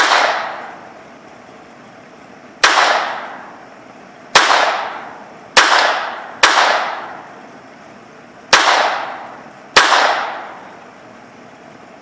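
Seven single shots from a Browning Buck Mark .22 semi-automatic pistol, spaced one to two seconds apart. Each sharp crack trails off in a short echo. The last rounds left in the magazine are being fired off.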